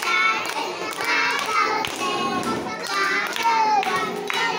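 A group of young children chanting or singing a rhyme together while clapping their hands in a steady rhythm, about two claps a second.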